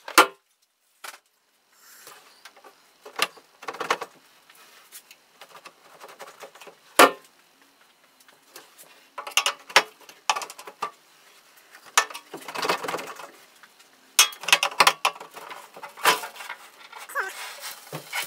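Scattered knocks, clicks and rattles of an aluminum boat live well and its hinged lid being handled and shifted by hand, with a sharp click about seven seconds in and busier clusters of knocking later on.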